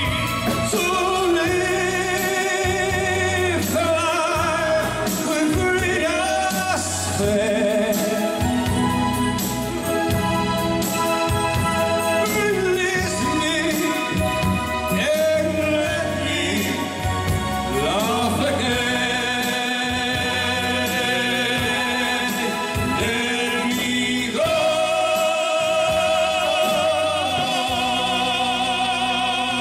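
Two male voices singing a slow ballad as a live duet, with a band accompanying them. Near the end they hold a long note with vibrato.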